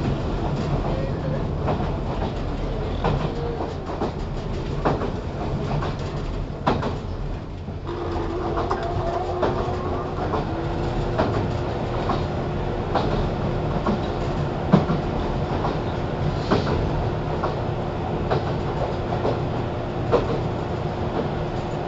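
JR 413 series electric multiple unit running, heard from inside the KuMoHa 413 motor car: steady running noise with scattered wheel clicks over rail joints. A steady hum comes in about eight seconds in and keeps on.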